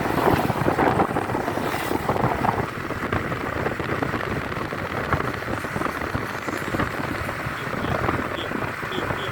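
Tour bus on the move: a steady rumble of engine and road noise with wind buffeting the microphone, a little louder in the first two seconds. No horn tune is heard.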